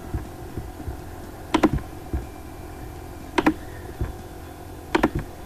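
Computer mouse clicking: three sharp doubled clicks, about a second and a half in, near the middle and near the end, with fainter ticks between, over a faint steady hum.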